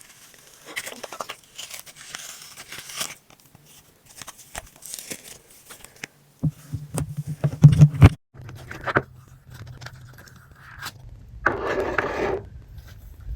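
Slime being stretched, squeezed and pulled apart by hand, with irregular crackling, tearing sounds and a few loud pops about eight seconds in.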